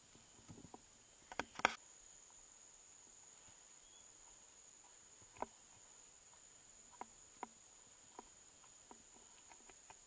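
A steady, high-pitched insect drone from the forest, stronger from about two seconds in, with a few scattered sharp clicks and crackles.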